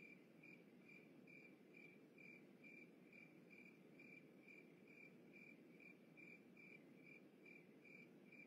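Faint cricket chirping: a single high chirp repeating evenly a little over twice a second, over a faint low hiss.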